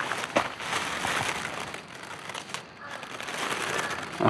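Dry leaf litter rustling and crackling, and soil scraping and crumbling, as gloved hands and a small knife dig young mushroom buttons out of the forest floor.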